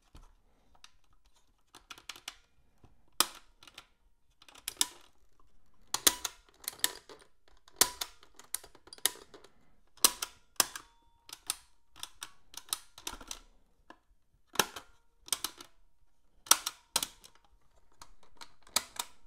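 Piano-style transport keys of an Atari 410 program recorder pressed and released by hand, giving irregular sharp plastic clicks and clunks as the tape mechanism latches and releases. The mechanism is being tested after new belts were fitted.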